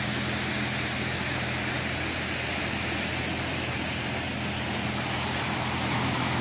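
Steady low mechanical hum with a constant rushing noise beneath it, unchanging in level.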